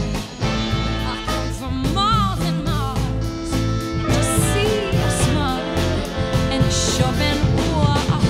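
A soul band playing live: a woman sings lead with vibrato on held notes, over drum kit, electric guitars and bass.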